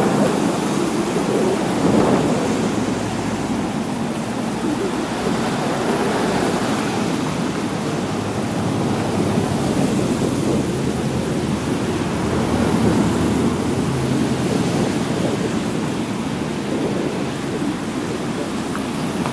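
Busy street traffic: cars passing close by on wet asphalt, a steady rumble of engines and tyre hiss that swells several times as vehicles go past.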